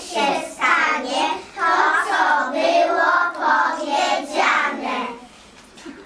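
Young children singing, the song ending about five seconds in.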